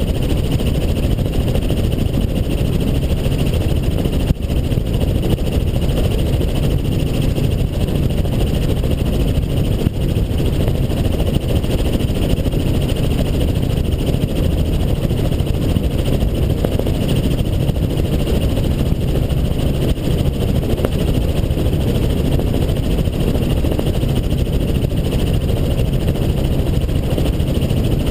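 Helicopter in flight: steady, unbroken rotor and engine noise.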